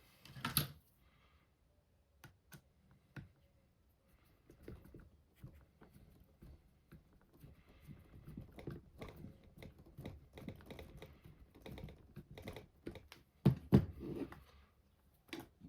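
Many small, irregular clicks and taps as 3x10 mm self-tapping screws are driven by screwdriver into the plastic front upright and suspension parts of an RC car chassis, with a few louder knocks near the end.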